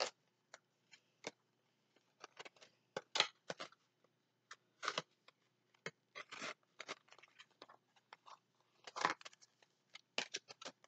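Stiff cardstock being folded and creased by hand into a small pop-up tent calendar: scattered short crinkles and taps of paper, loudest about three seconds in and again about nine seconds in.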